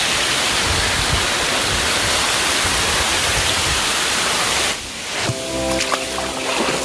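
Waterfall rushing steadily, a dense, even wash of falling water. It cuts off suddenly near the end, and background music with held notes comes in.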